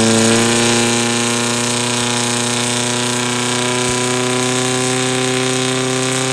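Portable fire pump's engine running at full throttle, settling at the top of its rev-up right at the start and then holding a steady high pitch while it pumps water out through the attack hoses during a fire-attack run.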